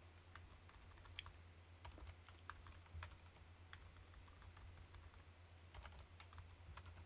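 Faint computer keyboard typing: irregular single keystrokes, a couple a second, over a low steady hum.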